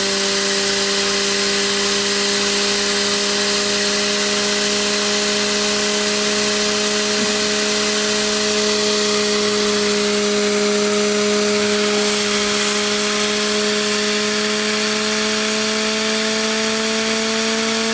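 3D-printed Tesla (bladeless disc) turbine running on compressed air with a steady zinging whine that climbs slowly in pitch as the rotor keeps spinning up. Under it is a loud hiss of air escaping from the casing, which the builder takes to mean that too much air is getting out through the four open holes.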